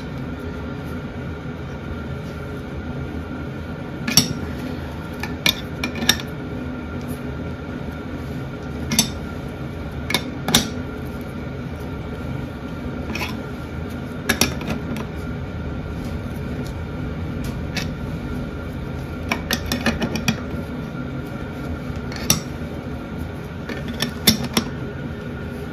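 Scattered metallic clicks and clinks of a spanner working the forcing screw of a blind bearing puller, some in quick pairs, as a tight needle bearing is slowly drawn out of the sprocket shaft. A steady hum runs underneath.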